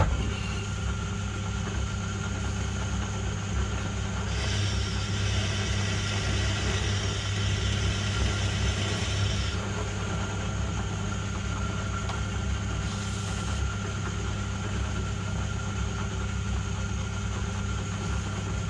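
Myford lathe running with a steady motor and drive hum while a drill held in the tailstock is fed into a spinning steel workpiece. A brighter, hissing layer rides on the hum from about four to nine and a half seconds in, as the drill cuts.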